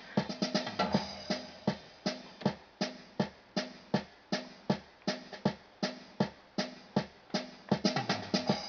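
An electronic keyboard's built-in drum rhythm playing a quick, steady beat of drum-kit hits.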